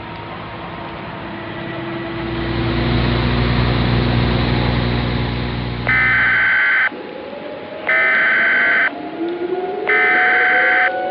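A low rumbling noise swells and cuts off suddenly, then three one-second bursts of Emergency Alert System SAME header data tones, the harsh digital buzz that opens an EAS alert, each a second apart. Underneath them, civil defense sirens begin winding up, rising in pitch.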